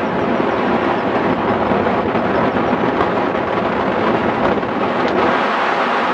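Steady, loud rush of airflow over the microphone of a camera mounted on a hang glider in flight.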